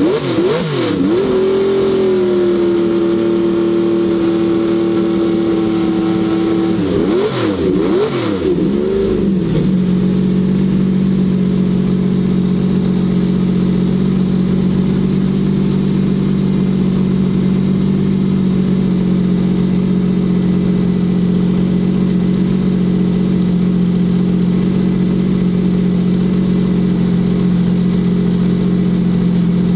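Lamborghini Miura SVR's V12 engine being revved: quick blips up and down, a held higher rev for several seconds, more blips, then about ten seconds in it drops to a steady, lower running speed.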